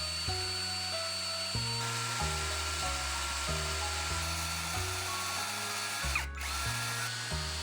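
Instrumental background music with a stepping bass line. Under it runs a steady high whine and hiss of a power tool at work, cut off briefly a little after six seconds.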